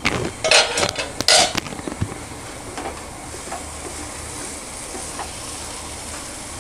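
A flat wooden spatula stirring and scraping a thick potato masala in a nonstick kadai, with two louder scrapes near the start, over a steady sizzle of the masala frying in the pan.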